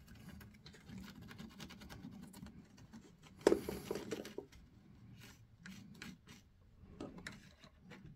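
Faint scratching and rubbing of small parts being handled on a cork trackbed: wires, a small screwdriver and a plastic N-scale turnout. One louder knock comes about three and a half seconds in.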